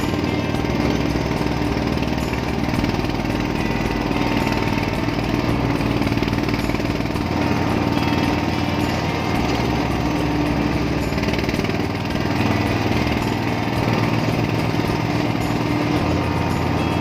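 Single-cylinder diesel engine of an i-taek, a Thai farm vehicle, chugging steadily under load as it climbs a mountain road, heard from on board.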